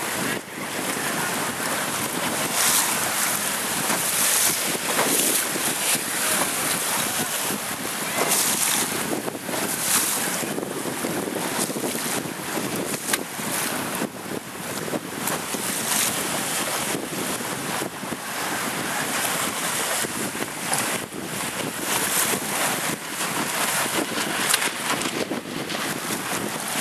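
Strong wind buffeting the microphone in frequent gusts over the rush of choppy, whitecapped sea.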